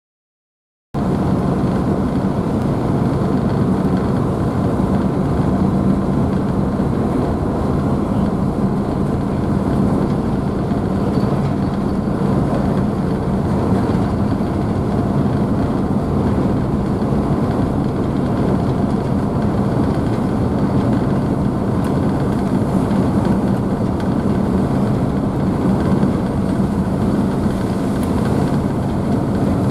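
Car ferry's engines running steadily with a low hum, under the rushing wash of the wake and spray behind the stern. The sound starts abruptly about a second in and holds unchanged.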